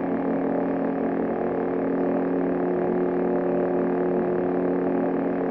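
An electronic lightsaber's sound board playing its steady idle hum, several low tones held without change.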